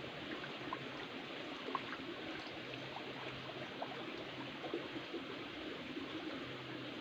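Shallow stream running over small rocks: a steady trickle with small water plinks here and there.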